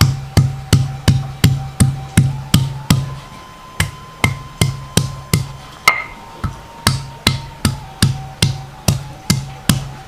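A round stone pestle pounds chunks of turmeric, ginger and galangal on a flat stone grinding slab: steady sharp knocks about three a second, each with a short low ring, pausing briefly twice.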